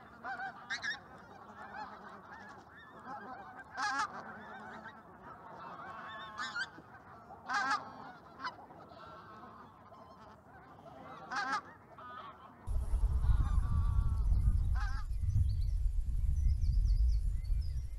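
A flock of pink-footed geese calling: a steady chatter of overlapping high "wink wink" calls, with a few louder calls standing out. About two-thirds of the way in it cuts suddenly to a loud low rumble of wind buffeting the microphone.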